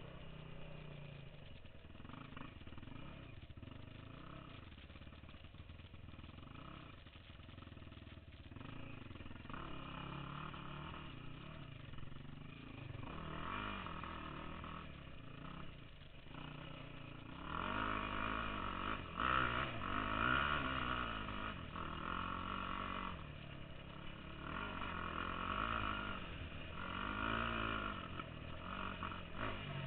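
Yamaha YFZ450 quad's single-cylinder four-stroke engine running under way, its pitch rising and falling again and again as the throttle is worked. It gets louder from a little over halfway through.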